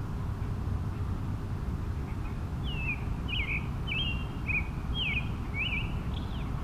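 Steady low rumble of road noise from a moving vehicle, with a small songbird singing a run of short, quick, sliding whistled notes starting about two seconds in.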